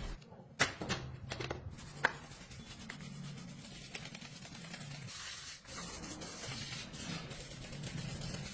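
A few faint clicks and knocks in the first two seconds, then a low steady hum.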